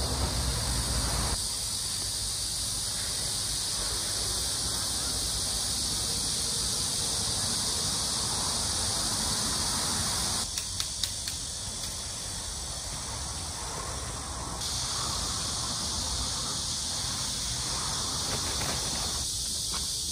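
Cicadas calling steadily in a high-pitched chorus, with a few short clicks about halfway through.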